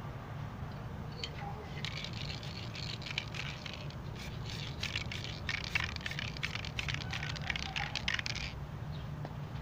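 Aerosol spray paint can hissing in a run of short, repeated sprays, starting about a second in and stopping shortly before the end. A steady low hum runs underneath.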